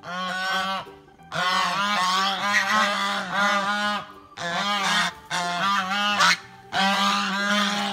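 Goose honking in rapid runs of short calls, in several bursts with brief pauses between them.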